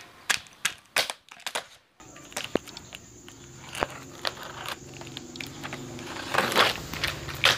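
A screwdriver blade stabbing and slitting packing tape on a cardboard box, giving short scrapes, crunches and tape tearing, with the loudest bursts near the end.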